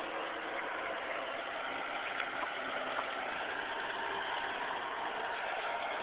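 Backhoe's diesel engine running steadily, with a couple of faint knocks about two and three seconds in.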